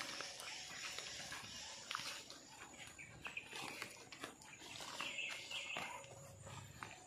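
Footsteps crunching through dry leaf litter and undergrowth, with irregular crackles of twigs and rustling as leaves brush past.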